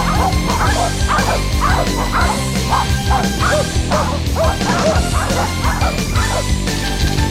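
Corgis barking and yipping repeatedly in short, quick calls over background music; the barking dies away near the end.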